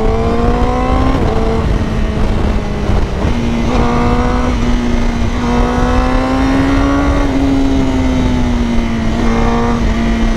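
Honda CBR1000RR-R Fireblade SP's inline-four engine pulling hard under acceleration, its pitch climbing and dropping in steps at quick-shifter upshifts about a second and three seconds in, then rising slowly before easing off about seven seconds in. Heavy wind rush on the microphone underneath.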